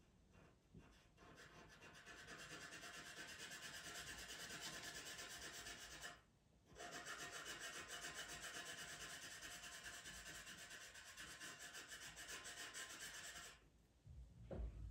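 The side of a pastel pencil is rubbing over Pastelmat paper in quick, short back-and-forth strokes, shading in a dark background. It is a faint, fine scratching with a brief pause about six seconds in, and it stops about a second before a soft bump near the end.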